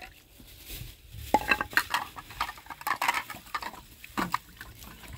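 Metal cooking pots and utensils clinking and knocking against each other, with one sharp clink that rings briefly about a second and a half in.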